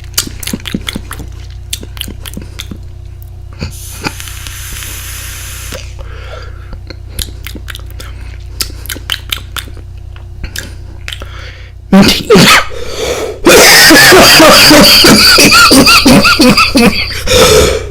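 Scattered light clicks and a brief hiss, then about twelve seconds in a person breaks into a loud, harsh coughing fit, so loud that it distorts.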